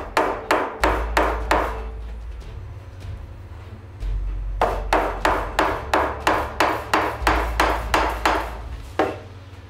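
A yellow soft-faced mallet tapping wrought-iron-head nails through vinyl edging into a wooden shield rim. The quick, light taps come at about four a second in two runs, with a pause of about three seconds between them, and one last tap near the end.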